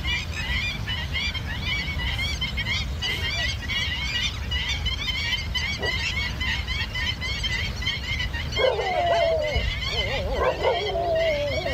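Birds chirping over and over in quick high chirps, over a low rumble of wind. About eight and a half seconds in, a louder wavering, whining animal cry starts and goes on to the end.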